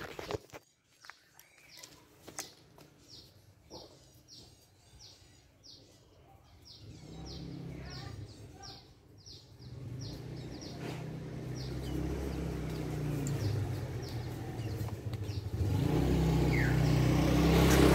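A motor vehicle's engine hum that grows steadily louder through the second half. Earlier, short high chirps repeat about twice a second, as from a bird.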